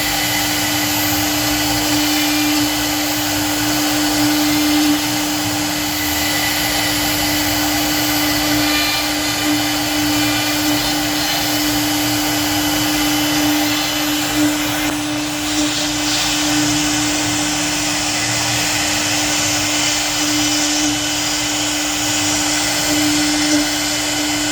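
CNC router spindle running steadily while carving wood: one constant tone with an even cutting hiss over it.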